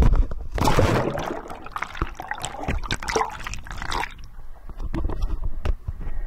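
Water splashing and churning around the camera as it goes into the water, then a quieter, muffled bubbling once it is underwater, about four seconds in.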